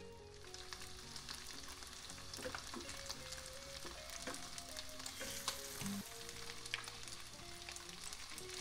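Oil sizzling and crackling steadily as a nori-wrapped tofu-and-potato vegan fish steak pan-fries in a nonstick pan. The sizzle picks up just after the start.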